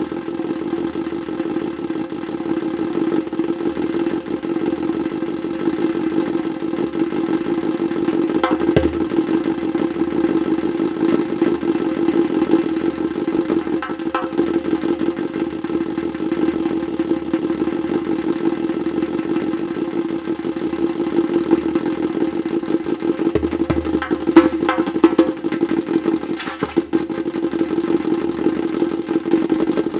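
Djembe played solo with bare hands in a fast, unbroken stream of strokes, the drumhead's ringing tone held under the rhythm. Deep bass strokes come through about nine seconds in and again around twenty-four seconds.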